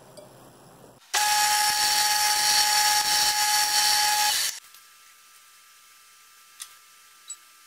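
Belt sander grinding the big end of a connecting rod to take off a little weight for balancing: a loud grinding rush with a steady whine, starting abruptly about a second in and stopping about three and a half seconds later. A couple of light clicks follow near the end.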